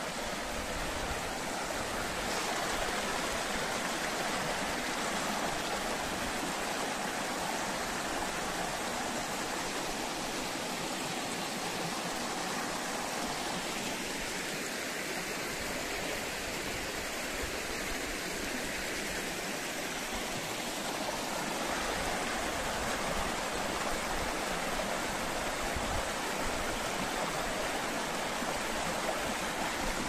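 Shallow rocky stream running over stones, water rippling and splashing through small cascades in a steady rush.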